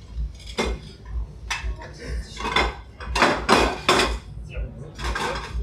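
Porcelain plates and cutlery clinking and clattering as plates are set down, filled and picked up, in irregular separate clatters, the loudest a little past three seconds in.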